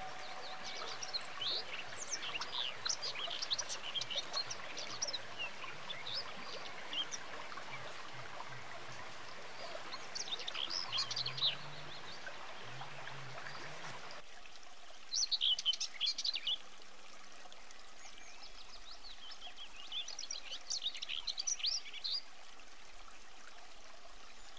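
Birds chirping and singing in short clusters over the steady rush of a forest stream; about halfway through the stream noise drops away, leaving the birdsong over a quieter background.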